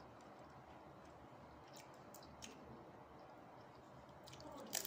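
Quiet mouth sounds of someone eating a crumb-coated fried snack: faint chewing with a few small clicks, then a sharper burst of clicks near the end as a piece is brought to the mouth and bitten.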